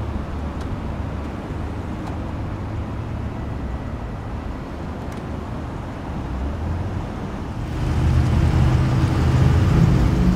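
The Aston Martin Virage Volante's 5.9-litre V12 idling steadily while the power soft top folds down into the rear deck. The idle grows louder about eight seconds in.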